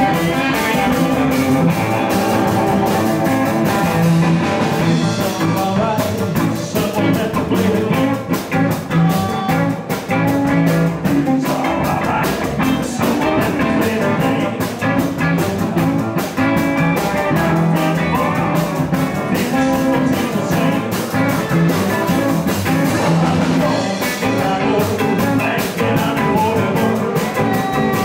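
Live blues band playing: electric guitar and drum kit keeping a steady beat.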